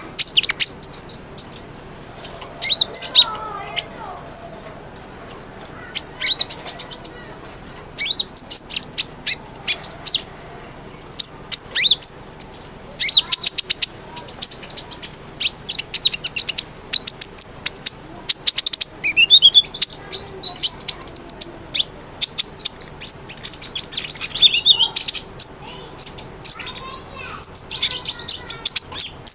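Kolibri ninja (Van Hasselt's sunbird) singing without pause: quick runs of high, thin chirps and twitters, broken by a few longer sliding whistles.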